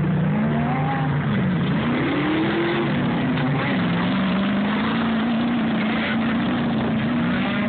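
Engine running with its pitch dipping, climbing and falling again over the first few seconds, then holding at a steady speed, with a strong noise of rushing air or road behind it.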